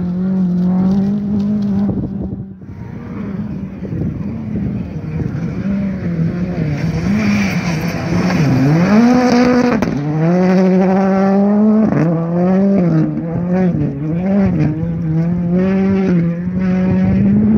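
Rally car engines at high revs on a gravel stage, one of them a Hyundai i20 R5. The pitch rises and falls as the drivers lift and accelerate, with a few climbs that drop off sharply at gear changes.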